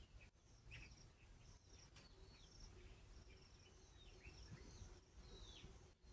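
Faint bird chirps: short calls that slide downward in pitch, repeating about once or twice a second over a low background rumble.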